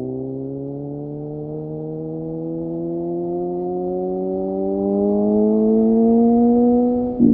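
A synthesized tone, several notes stacked together, rising slowly and steadily in pitch and growing louder as a build-up; near the end it breaks suddenly into a loud beat.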